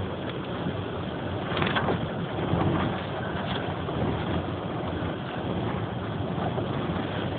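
Tornado winds blowing hard, a steady rushing noise that swells in gusts about two seconds in and again shortly after.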